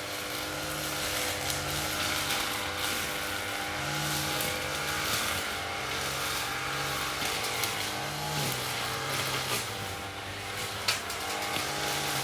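Lawn mower engine running steadily, its low hum swelling and fading about once a second. The pitch dips briefly about two-thirds of the way in, and there is a single sharp click near the end.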